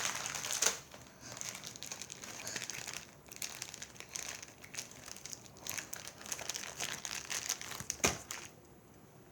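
Plastic packaging crinkling and crackling as it is pulled and worked at by hand to get it open, in a steady run of small crackles with a sharper knock about eight seconds in.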